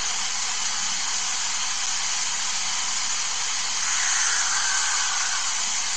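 Steady, even hiss with no speech, slightly louder from about four seconds in.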